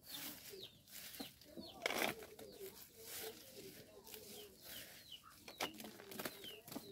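Faint clucking and short chirping of birds, with a few light clicks as babaçu kernels are put into a tin can.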